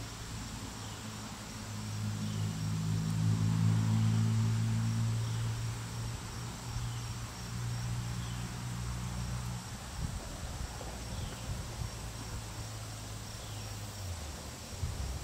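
Steady high chirping of insects, with a low engine drone that swells a couple of seconds in and fades away by about two-thirds through.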